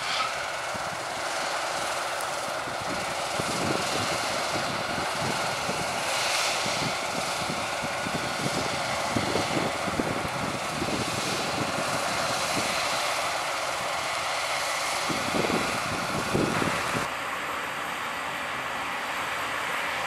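Claas Lexion 7500 combine harvester and a John Deere tractor running steadily while harvesting barley: a dense, continuous machinery drone. The sound shifts slightly about seventeen seconds in.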